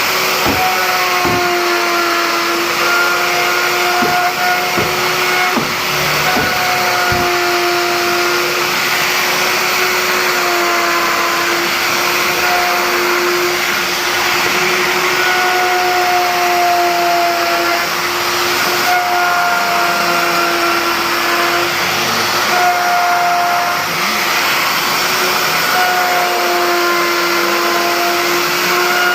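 Electric power tool motor running steadily with a high hum, its pitch dipping slightly now and then as it works, with a few faint knocks in the first several seconds.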